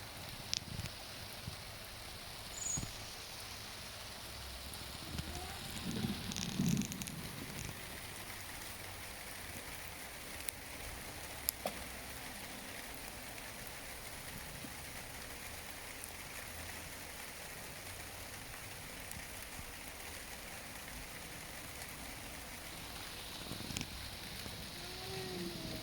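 Steady pattering hiss of water that sounds like heavy rain, with a few faint knocks and clicks.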